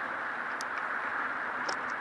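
Steady hiss of heavy rain, with scattered sharp ticks of drops.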